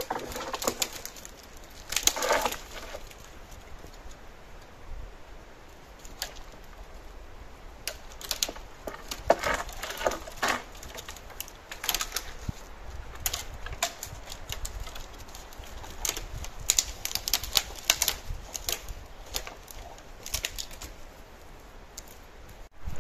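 Irregular sharp clicks and snaps of sticks and twigs, with a few short rustles of leaf litter.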